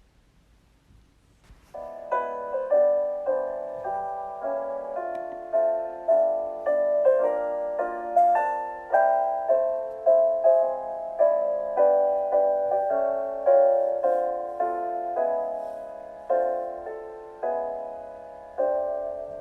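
Near silence for the first second and a half, then a gentle piano melody of single decaying notes.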